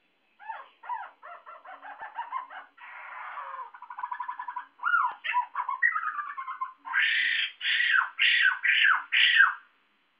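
White-crested laughingthrush calling loudly: a rapid chatter of varied notes and a rattling trill, then five loud descending calls near the end.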